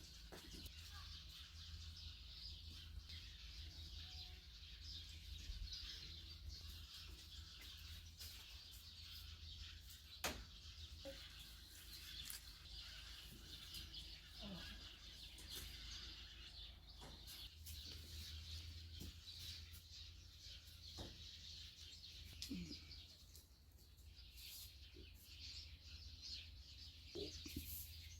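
Faint outdoor ambience of birds chirping over a steady low hum, with a single sharp click about ten seconds in.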